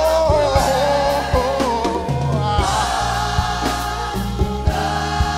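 Live gospel worship song: voices holding long sung notes in harmony over a band, with a steady bass line and drum beat.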